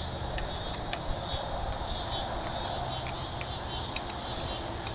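A steady chorus of insects chirping in repeating high pulses, with a few light metallic clicks from a screwdriver working the screws of an antenna's boom clamp; the loudest click comes about four seconds in.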